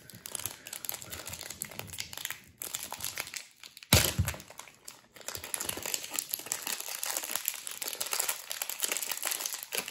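Thin clear plastic wrap being peeled and crumpled off a new 3x3 speed cube, crinkling continuously, with one sharp knock about four seconds in.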